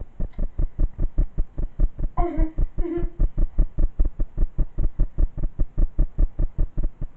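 Rapid, even low thumping about six times a second: a glitch in a new camera's audio recording. A child's voice makes two short sounds a couple of seconds in.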